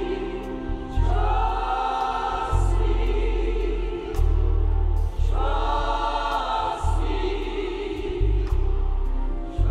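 Church choir singing gospel music over accompaniment, with sustained chords that change every second or two above deep, held bass notes.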